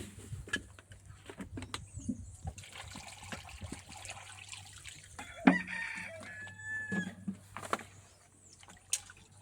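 Small clicks, knocks and water sounds as raw chicken is washed in a bowl. A rooster crows in the background, from about five and a half seconds in for nearly two seconds.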